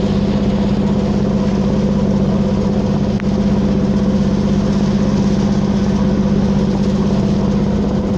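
Fishing boat's engine running steadily at an even speed, a constant low drone.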